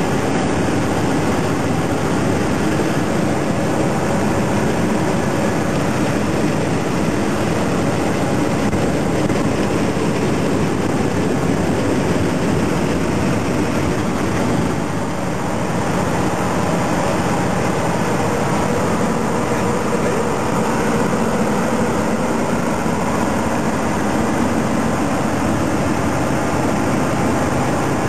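Semi-truck's diesel engine and road noise: a steady, loud drone while driving.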